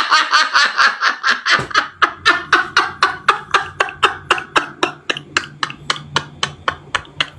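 A man laughing hard and long: a high, drawn-out howl of laughter that breaks into rapid ha-ha pulses, about five a second, slowly fading.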